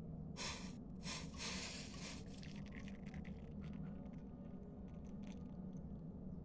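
Hot ginger kehwa being poured from the pan through a strainer into a cup, in three short pours over the first two seconds, followed by a few faint clinks.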